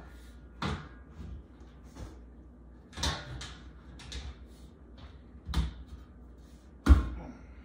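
Light-gauge metal shelving parts knocking and clanking as the bottom beams are fitted into the slotted uprights: a handful of separate sharp knocks, the loudest near the end.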